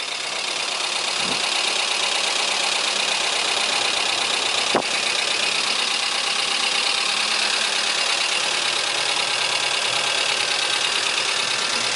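Chevrolet Corsa engine idling right after a rebuild, with a light ticking from its hydraulic lifters. The lifters are still empty of oil after the first start and should go quiet once they fill. There is one sharper click about five seconds in.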